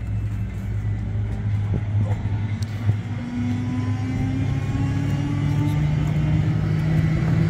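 Rollback tow truck's engine running steadily, its pitch climbing slowly from about three seconds in as the engine is revved to work the winch.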